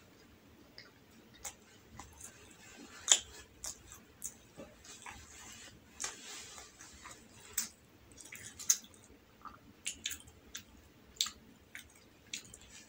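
Close-up mouth sounds of someone chewing rolled egg omelette: irregular wet clicks and smacks, one sharp smack about three seconds in the loudest.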